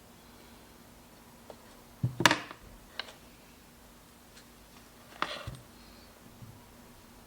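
Workshop handling sounds: a few clinks and knocks of tools or small parts being picked up and set down, the loudest cluster about two seconds in and another about five seconds in, over a faint steady hum.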